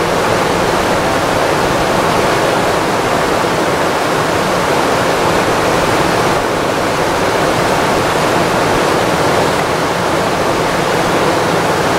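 River rapids rushing: a loud, steady noise of white water flowing over rocks.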